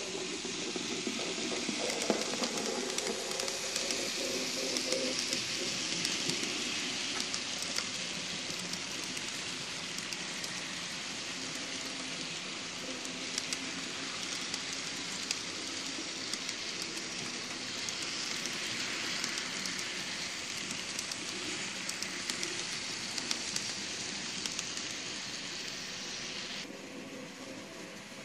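N-scale model passenger train rolling past: a steady rattling hiss with many fine clicks from the cars' wheels on the track. The Kato GS4 locomotive's small electric motor adds a whir as it passes in the first few seconds. Near the end the sound drops quieter.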